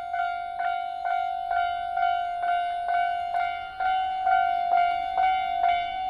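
Japanese railway level-crossing warning bell ringing in a steady repeated pattern, a little over two dings a second, each ding ringing on into the next.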